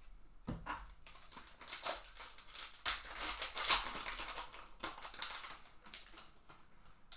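Hands opening baseball card packs and flipping through the cards: a string of short rustles and flicks of card stock and wrapper.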